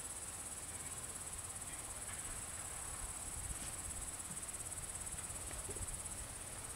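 Crickets chirping in a steady, high-pitched trill, with a faint low rumble beneath.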